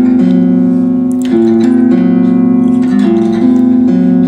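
Instrumental background music: plucked-string notes and chords, the notes changing every half second to a second.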